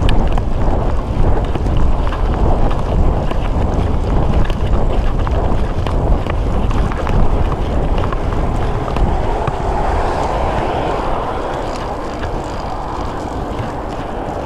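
Wind buffeting the microphone of a camera on a moving bicycle, a steady low rumbling rush, easing off a little near the end.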